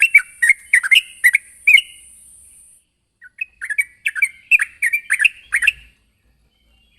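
Yellow-vented bulbul (trucukan) singing a loud, bubbly chirping call, about three quick notes a second, in two phrases with a pause of about a second and a half between them; it stops about six seconds in.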